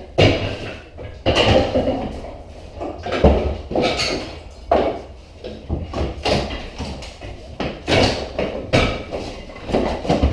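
A series of irregular knocks, bangs and clatter, as of remodeling work.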